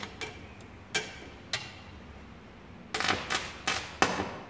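Welding rod arcing against a steel wire grid, powered by a homemade salt-water welding machine: a few sharp isolated cracks as the arc strikes, then a burst of loud crackling and popping from about three seconds in.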